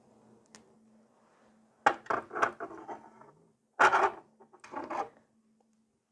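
Clicks and knocks of a gel polish bottle and a glass crystal nail-tip holder being set down and picked up on a tabletop. There are a few sharp taps about two seconds in and the loudest knock about four seconds in, over a faint steady hum.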